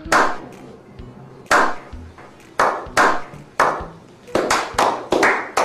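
Hand claps: a slow clap, single claps at first about a second apart, then quickening near the end.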